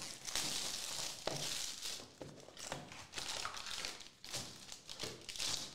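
Plastic shrink-wrap and the wrapper of a trading-card box crinkling and tearing as it is opened by hand, in irregular crackling bursts with a few sharp ticks.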